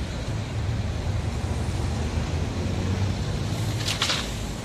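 Steady low rumble of road traffic, with a short hiss about four seconds in.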